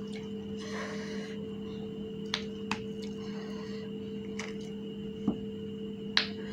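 Steady low electrical hum, with a handful of short crisp clicks and cracks scattered through it, from hollow fried fuchka shells being handled and eaten.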